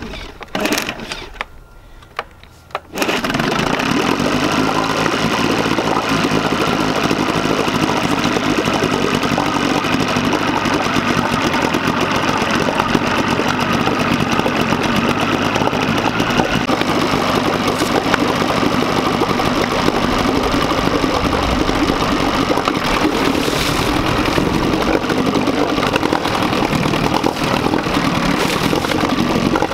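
1981 Evinrude 7.5 HP two-stroke outboard motor starting about three seconds in after a couple of clicks, then running steadily with its leg in a water test tank. It has just been fitted with a new water pump impeller and runs well, its note shifting slightly a little past halfway.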